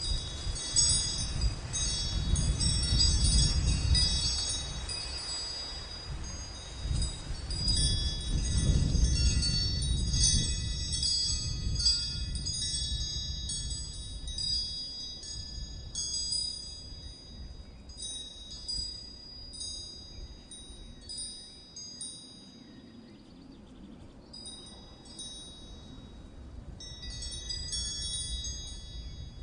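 Wind chimes tinkling, many high ringing notes struck irregularly, thinning out in the middle and busier again near the end. A low rumble swells under them twice in the first ten seconds.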